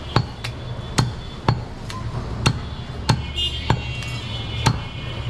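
Butcher's cleaver chopping through a goat's chest on a wooden log chopping block: about eight sharp chops at an uneven pace, roughly every half second.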